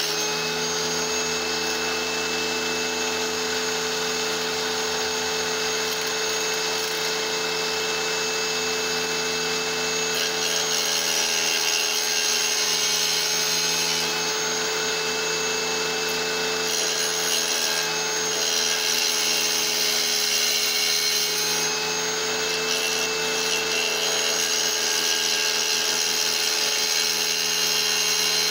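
Electric wet tile saw running steadily with a constant motor whine while a small block of petrified wood is ground against its blade. The grinding hiss rises and eases several times as the stone is pressed in and backed off.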